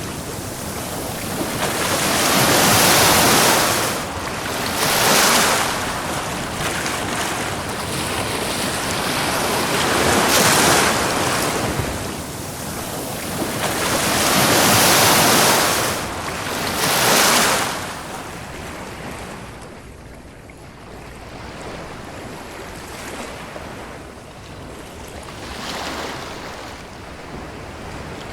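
Ocean surf: waves breaking and washing up a beach in repeated surges every few seconds. The surf grows softer about two-thirds of the way through, with smaller swells after that.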